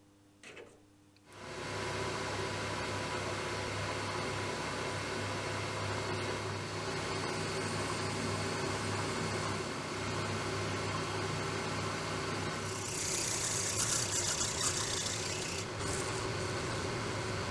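A small metal lathe starts about a second in and runs steadily with a low hum, turning a small gudgeon pin. From about two-thirds of the way through it turns louder and brighter for a couple of seconds as the cutting tool takes a cut.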